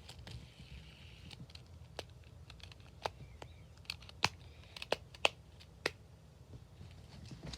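Silicone Pop-It fidget spinner's bubbles being pressed, giving a string of small sharp pops, about half a dozen at irregular intervals, over a faint rustle of handling.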